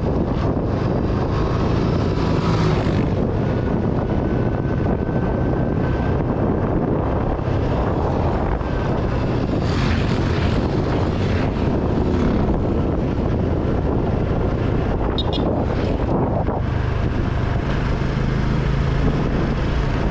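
Honda XRM 125 Fi's single-cylinder four-stroke engine running steadily while the motorcycle rides downhill, under wind rushing over the handlebar-mounted microphone.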